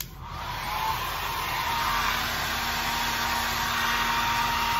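Handheld hair dryer switched on and blowing: a steady rush of air with a faint motor whine, building up to full strength within the first second or two.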